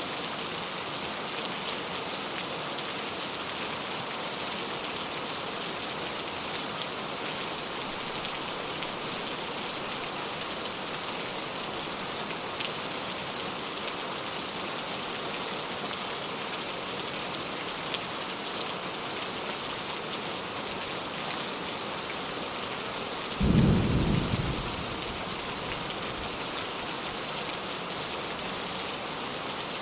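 Steady rain falling on a surface, with a single low clap of thunder about three-quarters of the way through that fades within a second or two.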